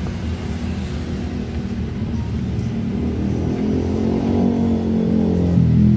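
Motor vehicle engine rumble from passing road traffic, growing louder and rising in pitch over the last few seconds as a vehicle draws closer.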